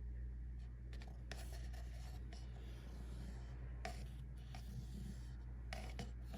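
A stick stirring and scraping around a mixing cup as a fresh batch of resin is mixed, in several short scratchy spells, over a steady low hum.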